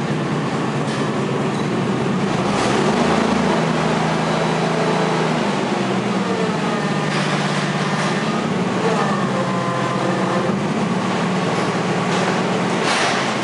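Yale forklift running as it drives and works its mast, a steady machine hum with a whine that glides up and down a couple of times in the middle as the forks are raised and tilted.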